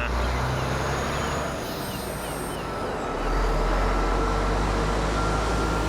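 Motor vehicle engine running with a steady deep rumble, as a vehicle drives along.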